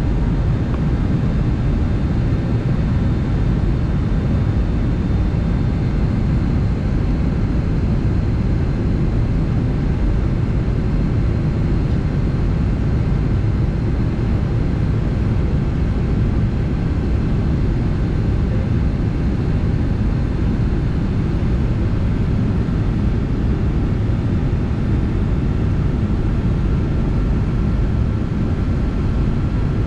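Steady cabin noise of a jet airliner on approach: a constant low rumble of engine drone and rushing air, with faint, steady whines above it.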